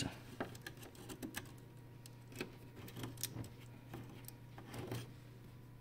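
Irregular small clicks and taps of hands handling parts inside the opened metal chassis of a diathermy (electrosurgical) unit, over a steady low hum.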